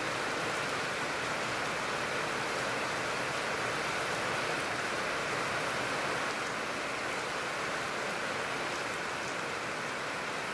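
Heavy rain falling steadily, with runoff pouring off a roof edge: an even hiss that eases slightly about six seconds in.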